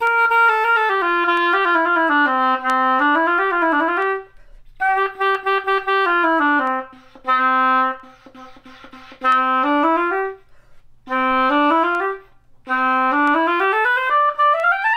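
Oboe played on a reed that has just been wrapped tightly with Teflon tape to make its blades overlap less. It plays short phrases of slurred falling and rising runs, with a few quick short notes in the middle and a rising run near the end. The reed's response is still poor.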